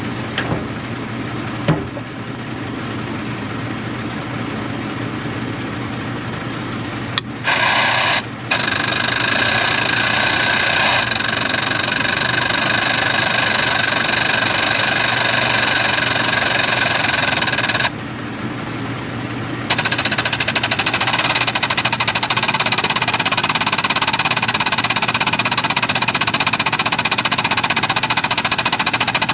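Power cutting tool running continuously as it cuts through the rubber of a blown scraper tire. It gets louder and higher about seven seconds in, eases off briefly near 18 seconds, then carries on loud.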